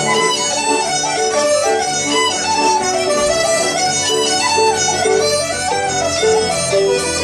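Traditional Irish session music: an ornamented woodwind melody over bouzouki strumming and piano accompaniment, playing continuously.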